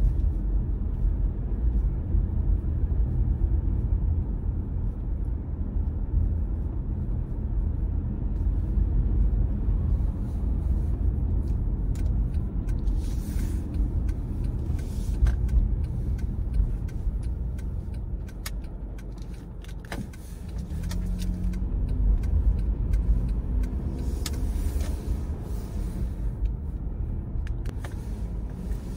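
Car driving: a steady low rumble of road and engine noise, with scattered clicks and ticks in the second half and a brief lull about two-thirds of the way through.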